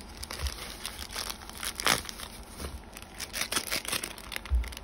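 Plastic drink sachets crinkling as they are handled, in irregular crackles with a louder one about two seconds in.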